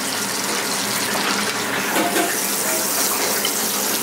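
Hot foie gras fat sizzling in a metal sauté pan on a gas burner: a steady hiss, with a few faint knocks.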